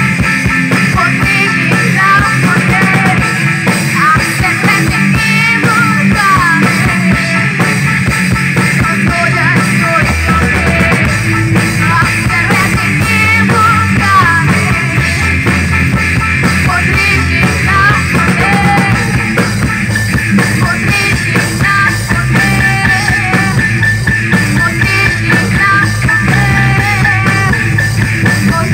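Live rock band playing a song: a girl's lead vocal sung over electric guitar, bass guitar, drums and keyboard. The low end gets heavier about ten seconds in.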